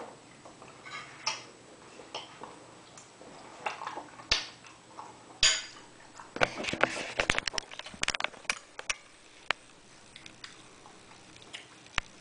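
Dishes and cutlery being handled in a kitchen, clinking and clattering. Scattered light knocks and rustles, a busy run of quick clicks in the middle, and one sharp knock near the end.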